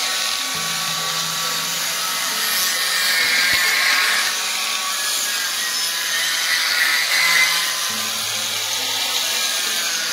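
Angle grinder with an 80-grit sanding disc running steadily against a teak door, grinding down dried sawdust-and-glue wood putty filled into the cracks. It is a steady motor whine under a gritty rasp, swelling a little now and then.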